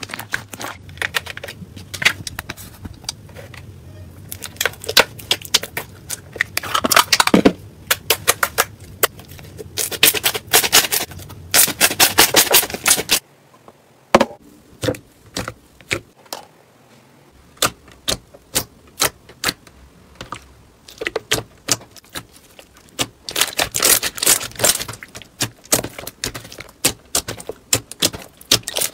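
Slime squeezed and kneaded by hand, with trapped air popping and clicking in rapid clusters. The sound drops away abruptly about 13 seconds in, then goes on as scattered pops that build back into dense clusters near the end.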